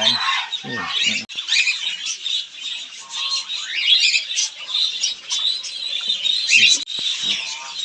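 A flock of caged pet birds chattering and squawking continuously, many short overlapping high chirps and calls.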